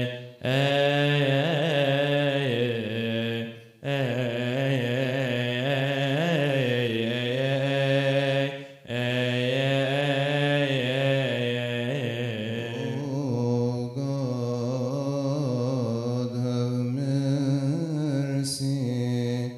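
Coptic Orthodox liturgical chant sung by male voices in long, ornamented melismatic phrases that waver around a steady low pitch, with short breaks for breath about 4 and 9 seconds in.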